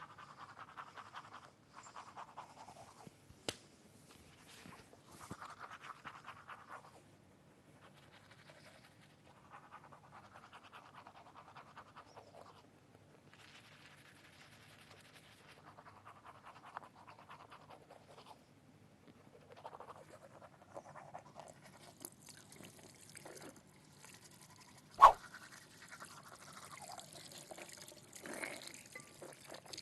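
A person snoring in sleep: a noisy rasping breath every few seconds at an uneven pace. A sharp click near the end is the loudest sound.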